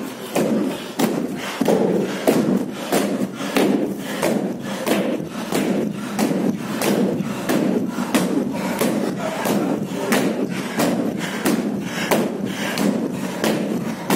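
A group of men chanting together in a Sufi zikr circle, stamping on a wooden floor in a fast, steady beat of about two to three stamps a second.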